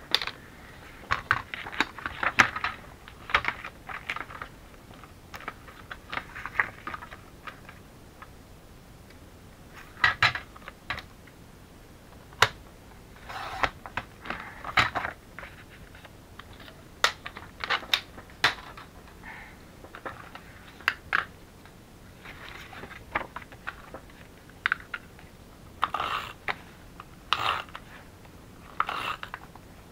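Paper-crafting handling sounds: cardstock and patterned paper rustling and sliding on the desk, with short taps and clicks of tools set down and picked up. The sliding blade of a paper trimmer cuts paper about halfway through, and a tape runner lays adhesive near the end.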